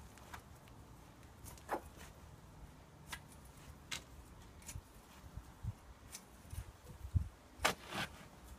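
Footsteps and handling of a long-handled garden fork: scattered faint clicks and knocks, with a few low thuds in the last few seconds, over a low rumble.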